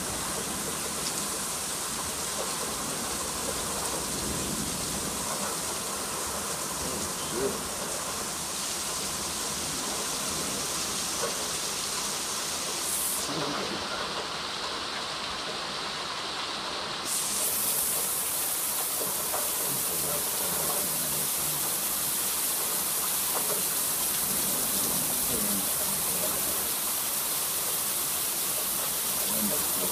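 Steady rain falling in a thunderstorm: an even, constant hiss that gets a little louder a bit past halfway.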